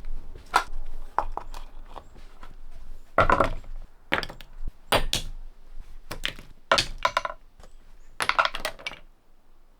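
A series of irregular knocks, thumps and scrapes from hands-on work on wooden parts, some in quick clusters, with a few ringing strokes. They die away near the end.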